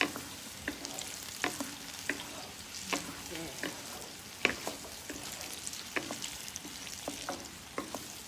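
Chilli sambal frying and sizzling in a wok as a wooden spatula stirs it. A steady hiss runs throughout, with scattered sharp pops and clicks.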